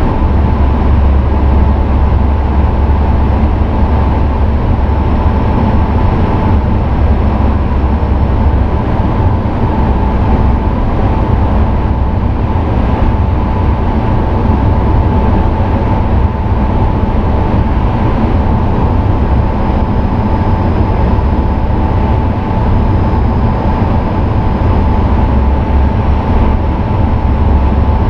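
Steady cockpit noise of a Sukhoi Superjet 100 airliner on approach: a loud, even low rumble of airflow and engines, with a steady high hum over it.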